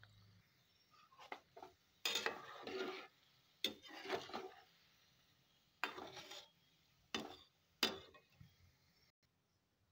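Metal slotted spoon scraping and knocking against a pan while gulab jamun are stirred in hot oil, in several short, irregular bouts. Faint sizzling of the frying oil runs underneath.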